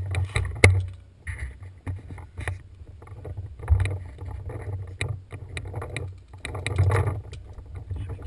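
Handling noise from a marker-mounted camera jostled as the player moves over dirt and rock: uneven low thumps and scuffing with scattered sharp clicks and knocks.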